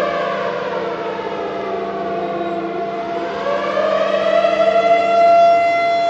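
Air raid siren wailing: its pitch sinks slowly over the first few seconds, then climbs again about three seconds in and holds high near the end.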